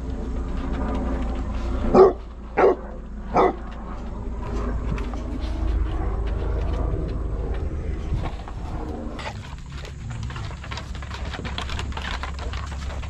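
A basset hound barks three times in quick succession about two seconds in. In the second half, dogs' claws click on the wooden deck boards.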